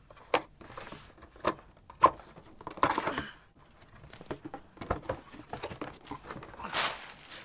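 A shipping package being opened by hand: packaging tearing and crinkling, with scattered clicks and two longer rips, about three seconds in and near the end.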